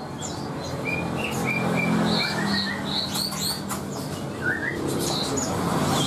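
Caged songbirds chirping: short high chirps in quick runs of two or three, mixed with lower piping notes and one rising note, over a steady low hum.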